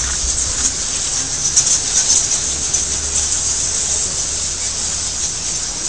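Dense, continuous high-pitched chittering of a large bat colony roosting in a cave, over a low steady rumble.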